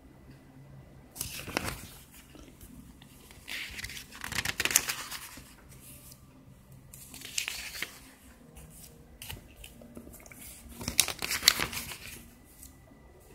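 Pages of a paper IKEA catalogue being turned by hand: four rustling page flips, about one every three seconds, with light paper handling between.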